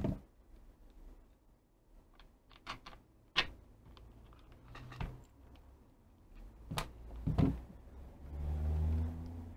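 Pliers and a small steel bolt clicking and tapping against a plastic soldering-gun case as the bolt is worked through to hold the two case halves together, with a few louder knocks. A low rumble of handling near the end as the gun is turned over on a rubber mat.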